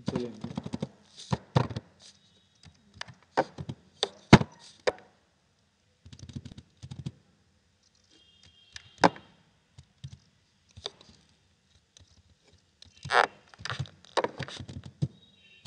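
Computer keyboard keys clacking in irregular bursts as code is typed, with several louder single key strikes and quiet gaps between bursts.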